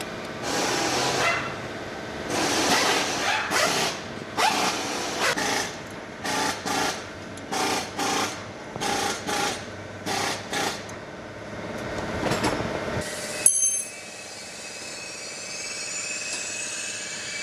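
A power tool run in repeated short bursts, coming about two a second in the middle, then a sharp click and a steadier high hum with a rising whine.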